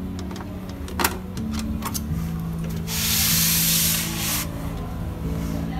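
The stripped Epson LQ-310 dot-matrix printer chassis being slid and turned on its board: a harsh, noisy sliding sound lasting about a second and a half, a little past the middle, after a couple of light clicks.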